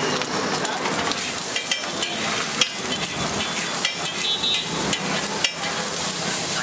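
Fat sizzling steadily on a hot flat iron griddle, with a few sharp clicks and knocks over it.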